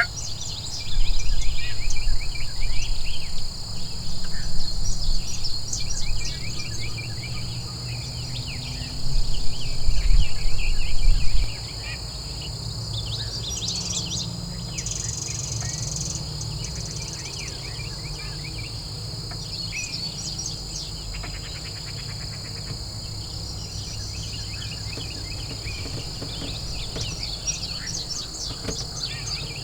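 Woodland ambience: a steady high insect drone with songbirds chirping on and off, under a loud low rumble that drops away about eleven seconds in.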